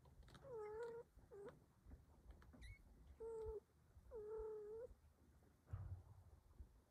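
Kittens mewing: four soft, fairly level-pitched mews in the first five seconds, one very short and the last the longest, over faint low rustling.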